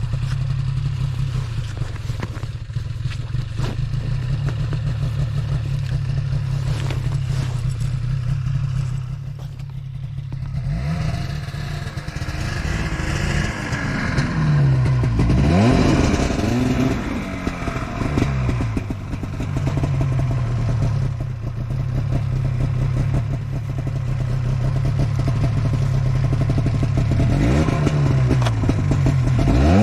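Four-wheel-drive vehicle's engine running steadily, then revved up and down in several surges from about ten seconds in, as it tries to climb an icy trail.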